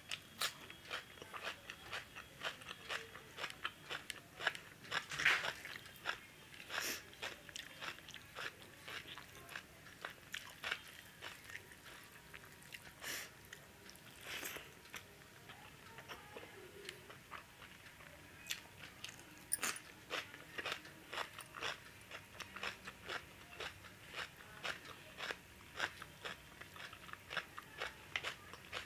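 A person eating rice and curry by hand, chewing with many short, irregular crunching and biting sounds.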